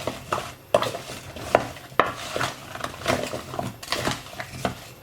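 Sliced parsnips being stirred and tossed with seasoning in a dish: irregular clinks, knocks and scrapes against the dish.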